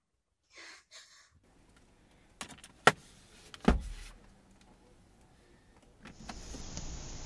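Two short breathy gasps, then a few sharp clicks and a heavy thump inside a car. From about six seconds in comes a steady hiss.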